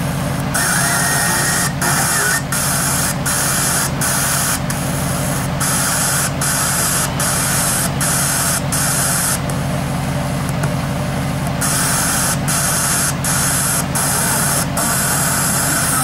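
Loud FM radio static hissing from the repaired active speaker's MP3/FM radio module, with a low steady hum underneath. The hiss cuts out briefly about once a second. It is untuned noise because the radio's antenna is not yet connected, so no station comes in clearly.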